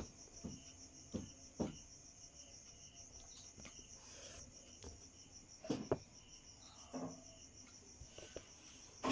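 A cricket trilling steadily and faintly, a fast, even, high-pitched pulsing. Over it come a few soft knocks and taps as a ruler and tailor's chalk are handled on a cloth-covered table, the loudest a pair about six seconds in.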